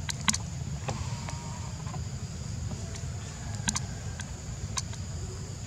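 Outdoor ambience: a steady low rumble under a thin high hum, with a few sharp clicks, the loudest about a third of a second in and another pair near the end of the fourth second.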